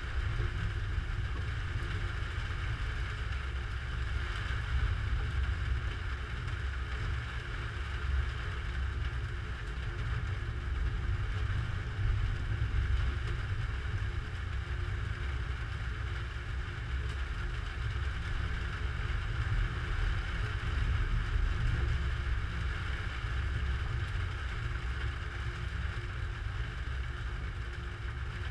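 Steady low rumble and hiss of a thunderstorm, heard muffled through a GoPro camera: mostly wind, with small swells but no sharp thunderclap.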